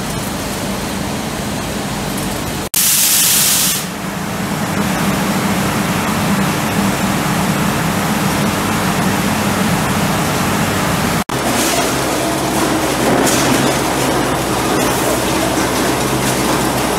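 Frigoscandia GCM spiral freezer running: a steady rush of air from its fans over a low hum. A brief loud hiss comes about three seconds in, and the sound cuts out sharply twice.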